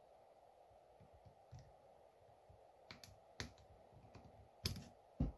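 A few sharp, short metallic clicks in the second half as a small hand tool picks at the fuel inlet screen inside a McCulloch 1225A chainsaw carburetor's metal body, over a faint steady hum.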